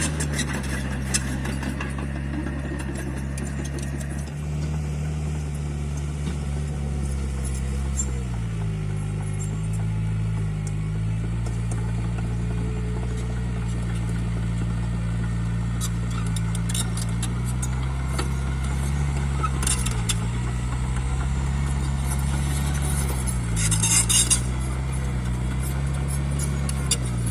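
Mini bulldozer's diesel engine running steadily, its pitch sagging briefly and recovering several times as it takes load while pushing fill soil. A few spells of metallic clinking and rattling from the machine, the loudest near the end.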